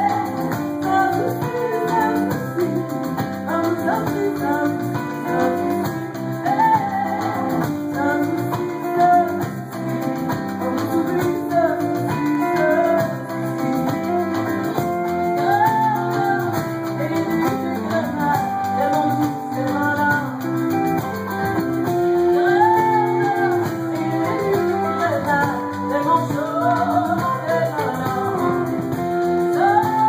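Live band music: a woman singing lead over strummed guitars, electric guitar and drums, amplified through a concert PA.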